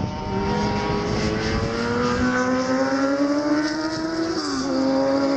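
A racing motorcycle's combustion engine accelerating, its pitch climbing steadily for about four seconds, then dropping at a gear change and holding at the lower pitch.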